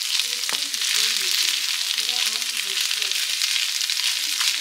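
Fried rice sizzling steadily in a frying pan as a spatula stirs it, with two brief sharp clicks, one about half a second in and one near the end.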